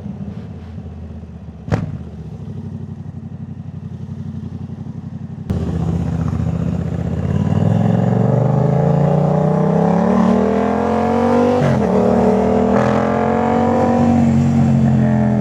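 Yamaha MT-07's parallel-twin engine through a full Jeskap aftermarket exhaust, heard while riding. It runs steadily at low revs with a single sharp knock about two seconds in, then turns suddenly louder about five seconds in. The pitch climbs under acceleration, dips briefly at a gear change, and climbs again.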